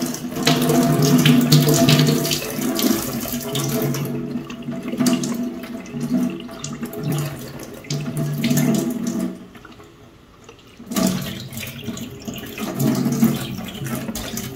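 Kitchen tap water pouring into a small plastic ice pack, filling it, with a steady low tone under the splashing. The flow stops briefly about ten seconds in, then runs again.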